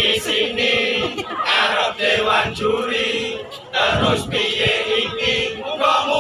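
A group of men chanting and singing together in unison, with the voices of a surrounding crowd mixed in.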